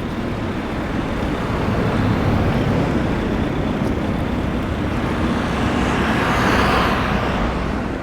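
Street traffic: a vehicle passes, its sound swelling about six seconds in and fading near the end, over a steady low rumble of city noise.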